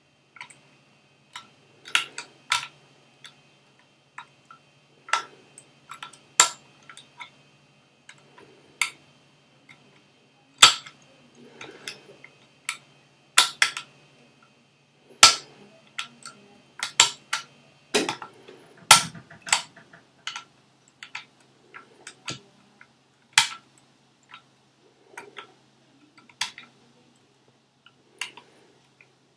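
Lever lock being picked: a pick scraping in the keyway and lifting the levers of an ERA Fortress lever mortice lock, giving irregular sharp metallic clicks and ticks as levers are raised, dropped and set against the shear line.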